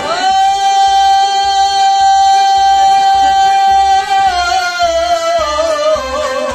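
Male singer of Kashmiri Sufiana music holding one long high note for about four seconds, then sliding down through a wavering, ornamented descent. Harmonium and a bowed sarangi accompany him.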